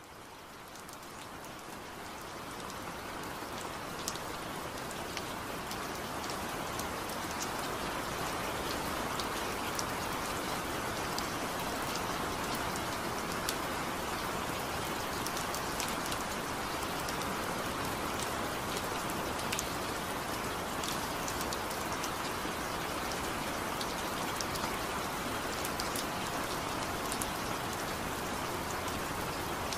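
Steady rain, with scattered sharp drops standing out against an even hiss. It fades in over the first several seconds and then holds level.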